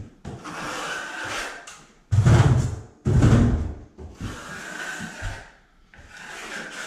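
Marshalltown steel trowel scraping setting-type joint compound along a paper-taped drywall joint in several long strokes, the two loudest about two and three seconds in.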